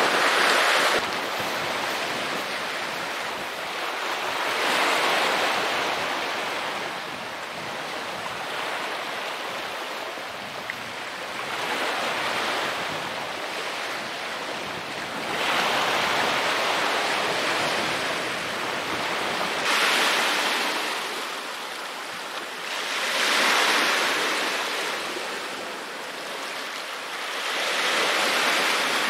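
Sea waves breaking on a pebble shore, the surf swelling and falling back every few seconds.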